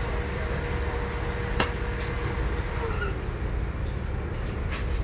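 Cabin noise inside a 2022 NovaBus LFS HEV hybrid-electric transit bus: a steady low rumble, with a faint steady whine that drops away about three seconds in and a single sharp knock about a second and a half in.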